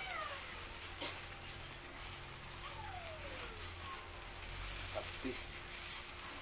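Chicken heart skewers sizzling over glowing charcoal: a steady hiss with a couple of faint clicks, and a few faint falling whistle-like tones.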